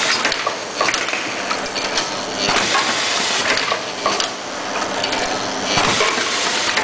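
Automatic screw-fixing machine running: a dense clatter of metal clicks and knocks over a steady mechanical rattle.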